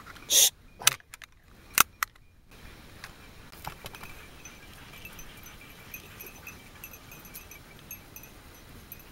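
A few sharp knocks and one loud thump in the first two and a half seconds, then faint high jingling, the small bells on hunting dogs' collars, over a steady outdoor background.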